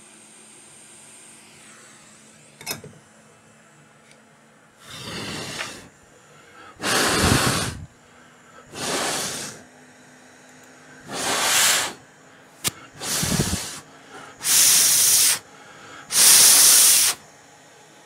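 Seven short hissing blasts, each about a second long, spaced one to two seconds apart, the last two the loudest, with a single sharp click shortly before the first.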